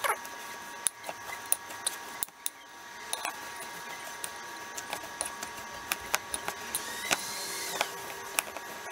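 Hands mushing and mixing rolled oats, chia seeds, peanut butter and honey in a glass bowl: irregular light crackles and clicks of the oats and fingers against the glass.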